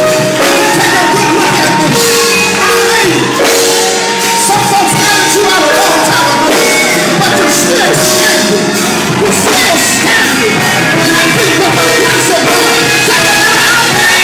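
Loud gospel music in a church: singing over sustained instrumental chords, with shouts.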